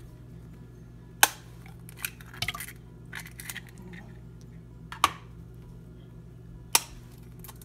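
Eggs knocked against the rim of a mixing bowl to crack them: three sharp taps, about a second in, near five seconds and near the end, with soft handling noises between them over a low steady hum.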